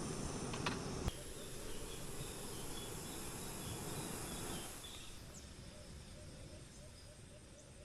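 Outdoor ambience: a steady background hiss with faint, repeated insect-like chirps. There is a single sharp click about a second in, and the background gets quieter about halfway through.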